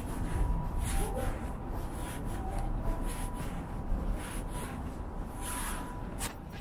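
Outdoor background noise: a steady low rumble with scattered soft scuffs and rustles.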